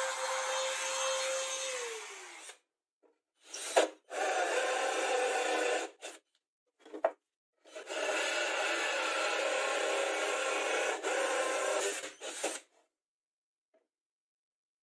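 A small trim router runs with a steady high whine, then is switched off about two seconds in and winds down. After short gaps a drill bores into laminated board in bursts of rough cutting noise, the longest lasting about five seconds.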